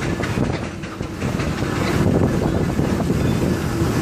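Steam road roller driving past on a tarmac road, its steam engine working and its heavy iron rolls and wheels rolling, with a steady mechanical clatter.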